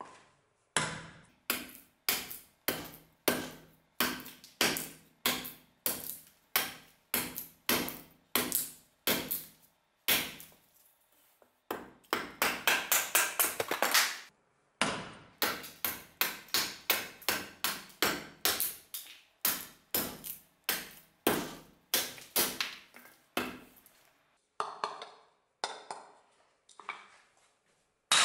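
A freshly restored corn axe, a heavy curved bush-axe blade, chopping wood on a wooden chopping block in steady strokes about two a second. About halfway through there is a quicker, louder run of strokes, and the strokes turn lighter near the end.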